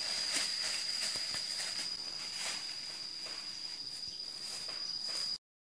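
An insect trilling: a steady, high-pitched tone with light rustling, cutting off abruptly near the end.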